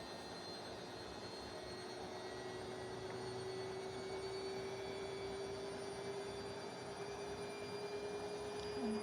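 Bosch washing machine running with a steady hum whose pitch slowly rises from about two seconds in, as the drum motor picks up speed on the spin cycle.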